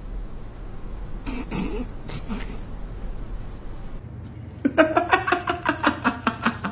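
A person laughing hard in quick, evenly spaced pulses, about six a second, starting about two-thirds of the way in. Before it there is a low hum with a couple of brief sounds.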